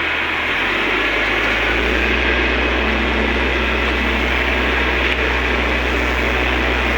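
An engine runs steadily, its low drone stepping up about half a second in and again near two seconds in, over a steady loud hiss.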